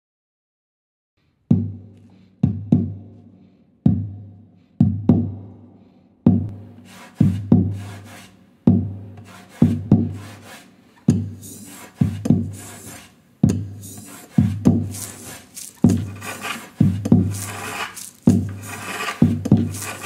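Knuckles knocking on the top of an acoustic guitar in a steady rhythm, each knock followed by the hollow body's low boom, starting about a second and a half in. From about seven seconds in, scraping strokes of a tool on wood come in between the knocks, building a beat out of luthier's workshop sounds.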